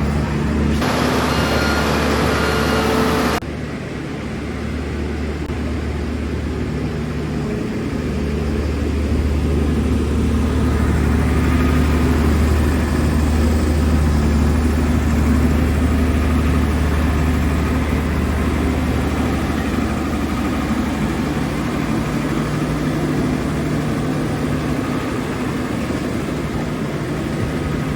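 Heavy diesel engine of road-paving machinery running steadily at a low, even hum. Near the start a loud hiss lasts about two seconds and cuts off sharply.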